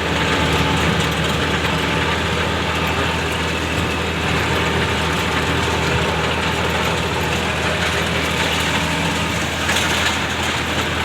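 A vehicle engine running steadily at an even speed, with no revving.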